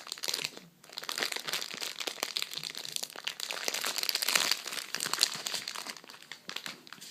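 Close-up crinkling and crumpling of a crinkly material, a dense run of small irregular crackles that pauses briefly just under a second in.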